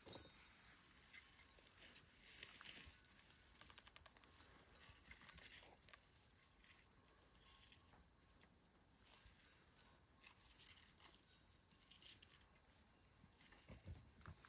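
Faint, irregular rustling and crinkling, a few soft scrapes and crackles scattered through an otherwise near-silent background.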